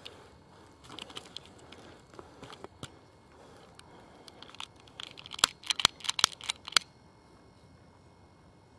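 Scattered crinkling and crackling of handling over dry pine needles, then a quick run of about eight sharp clicks in under two seconds from a long utility lighter being sparked to light the firecracker's fuse.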